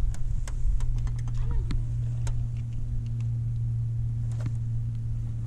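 Steady low hum of a boat's electric trolling motor, with scattered light clicks and taps.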